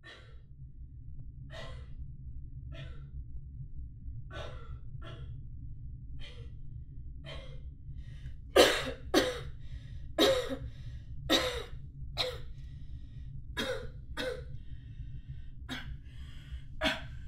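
A woman's short, heavy breaths, about one a second, over a steady low hum. From about halfway they come louder and quicker, like gasps.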